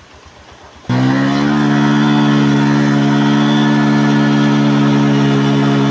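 Motorcycle engine revved up sharply about a second in, then held at steady high revs.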